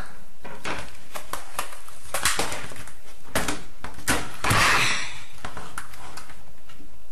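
Computer keyboard being hammered by hand: a fast, irregular run of loud clacks and knocks in a small room.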